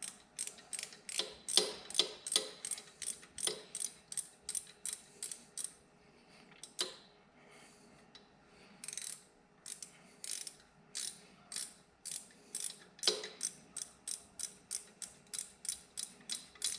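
Hand socket ratchet clicking in quick, even strokes, about two to three clicks a second, as an engine bolt is backed out. The clicking pauses for about two seconds midway, then carries on.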